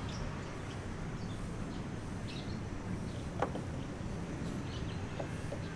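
Steady low outdoor rumble with faint bird chirps, and one sharp knock about three and a half seconds in.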